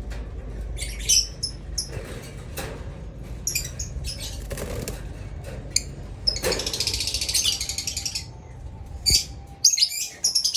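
Lovebirds chirping in short, high-pitched calls, with a fast chattering run a little past halfway and another near the end.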